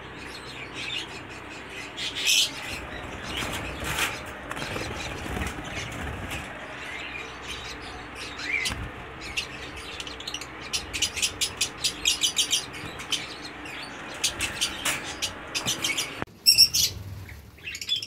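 A flock of caged lovebirds chirping: many short, high calls, coming in quick runs, over a steady hiss that drops away about sixteen seconds in.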